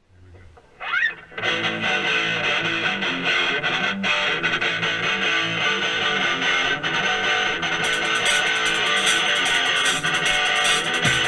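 Rock band's song intro led by loud, strummed distorted electric guitar, starting with a short rising slide about a second in. The sound grows fuller and brighter from about eight seconds in as more of the band joins.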